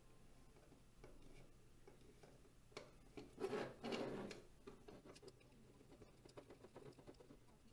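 Faint handling noise from a 3D-printed plastic tube in the hands. A brief rubbing scrape comes about halfway through, then a run of small, quick ticks as a small metal thumbscrew is turned into the tube's plastic clamp block.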